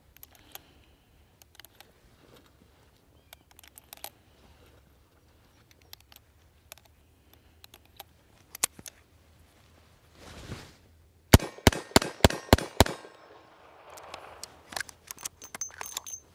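SAR 38 revolver being loaded with small metallic clicks, then fired six times in quick succession, about three shots a second, in a second and a half. Light clicking and rattling follow the shots.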